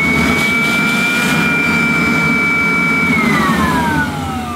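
Kirby Classic III vacuum cleaner's motor and metal fan running with a loud, high-pitched scream. About three seconds in it is switched off and the whine falls steadily as the motor spins down. The owner says this scream is not the sound a Kirby should make.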